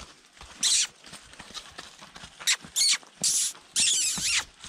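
Horses squealing and blowing in about five short, shrill bursts, with a sharp knock at the very end.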